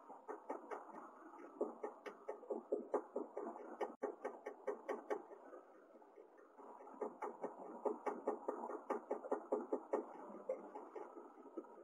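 Rapid, uneven run of soft ticks and chips at a house finch nest while the adult male feeds the nestlings, several a second, thinning out for a moment about halfway through.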